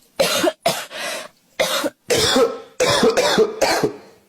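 A person doing a put-on, comic cough: a run of about eight short coughs with brief pauses between them.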